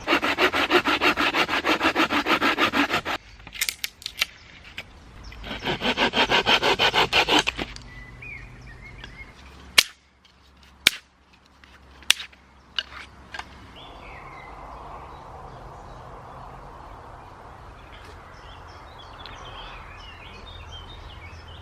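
Hand saw cutting through wood in two spells of fast, even back-and-forth strokes, followed by several sharp separate cracks.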